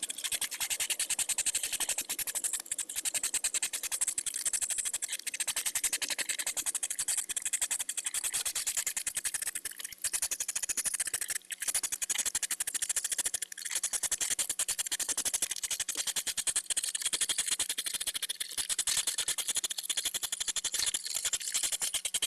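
Courting European hedgehog huffing: a steady, rapid run of quick rhythmic puffs. This snorting is the mating-season call, made mainly by the female as the pair circle each other.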